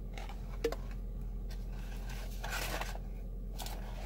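Brief rustles and a click from a burger box and wrapper being handled, over a steady low hum.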